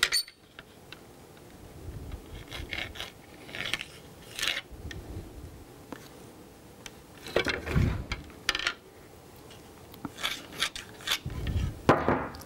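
Yellow marking pencil scratching lines onto a bowling ball's surface along a plastic layout ruler, in short irregular strokes, with the ruler clicking and rubbing against the ball. Near the end a louder knock as the pencil is dropped onto the table.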